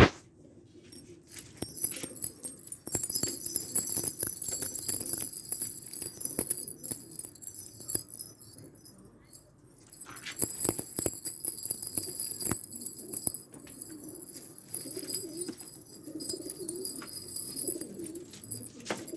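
Domestic pigeons cooing, low and wavering, over a high tinkling and scattered small clicks.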